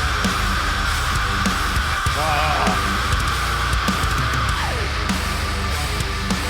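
Heavy metal song playing: distorted electric guitar held over bass and regular drum hits.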